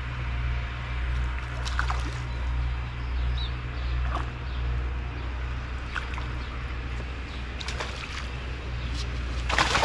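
A hooked crucian carp splashing at the surface as it is played in and drawn into a landing net: small splashes and sloshing water, with a louder splash near the end, over a steady low rumble.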